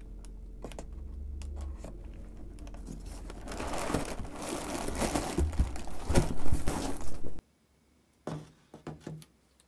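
Plastic air-pillow packing and foam packing pieces rustling and crinkling as a cardboard box is unpacked by hand, getting louder and busier, then cutting off suddenly. A few short soft knocks follow as a metal stove frame is set down on a wooden tabletop.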